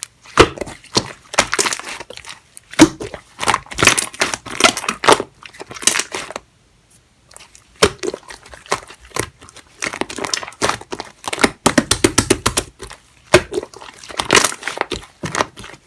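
Clear slime mixed with yellow shaving foam being squished and kneaded by hand: a dense run of crackling, popping clicks, with a short pause about six to seven seconds in.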